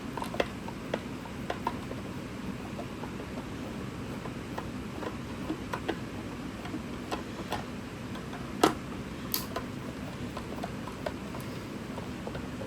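Scattered light clicks and taps from hands working on the plastic casing of a Sony SRS-67 portable speaker while taking it apart, with one sharper click about two-thirds of the way through.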